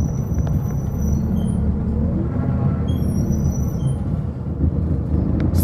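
Steady low rumble of a city bus heard from inside the passenger cabin.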